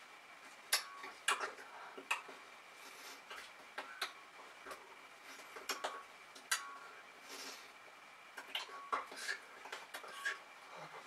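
Irregular soft clicks, taps and rustles from a person's hands meeting and clothing moving as he signs in sign language, a few to a second, over a faint steady high tone.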